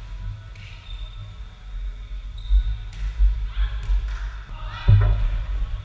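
A volleyball hits once with a sharp, loud thump about five seconds in, ringing out in a large echoing gym, over a steady low rumble of the hall and some players' voices.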